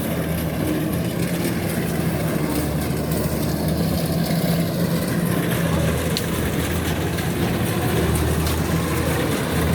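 Kubota DC93 rice combine harvester's engine running steadily with a constant low hum.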